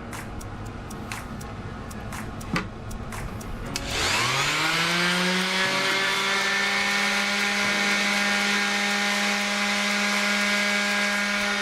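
A small electric power tool starts about four seconds in. Its pitch rises as the motor spins up, then it runs steadily at a high, even pitch. A few light clicks come before it.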